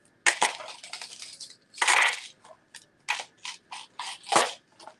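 Jewelry and its packaging being handled: a quick run of rustles and light clinks, with two longer, louder rustles about two seconds in and near the end.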